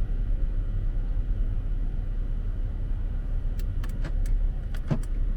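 Car being driven: a steady low rumble of engine and road noise, with a few short clicks a little past halfway through.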